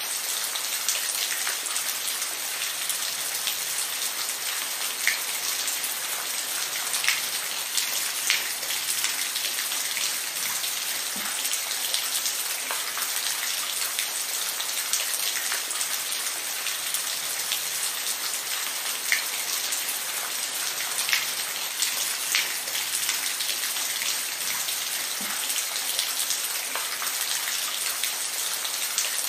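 Steady rain falling, with individual drops ticking sharply now and then over the even hiss.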